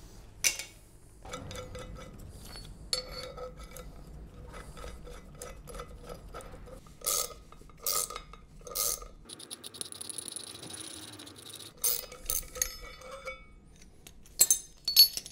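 Steel tools clicking and clinking as a gear puller is wound with a ratcheting spanner to draw a ruined center support bearing off a drive shaft, with a few sharp metallic knocks that ring.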